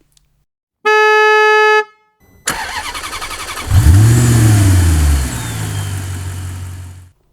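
A vehicle horn beeps once for about a second. Then an engine cranks and starts, revs up and back down, and runs until it cuts off near the end.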